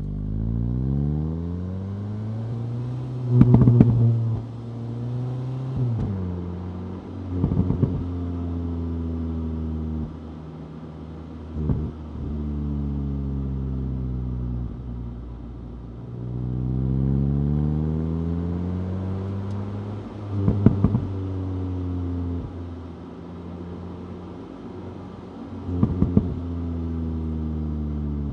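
2025 VW Golf GTI 8.5's turbocharged four-cylinder engine pulling through the gears, its pitch climbing and then dropping at each upshift. Short sharp crackles come with the shifts, five times.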